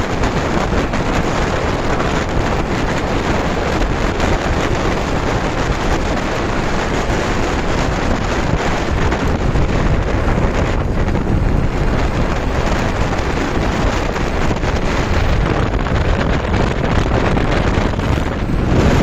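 Steady, loud wind rushing over the microphone of a moving bike, with vehicle noise underneath.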